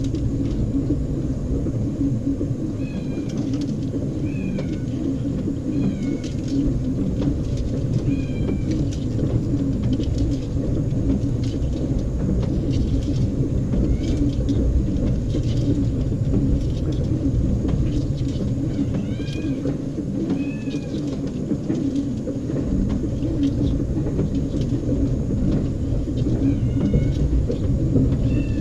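LG 18 kg washing machine, heavily overloaded with clothes, running its wash cycle: a steady low rumble of the turning drum and sloshing load. A few short, high chirps sound over it, several seconds apart.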